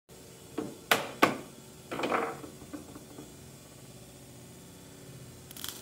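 Sharp plastic clicks and knocks as the latched end cap of a plastic-pipe steam box is worked loose, three of them in the first second and a bit, then a short rushing, scraping noise as the cap comes off, followed by a couple of lighter knocks.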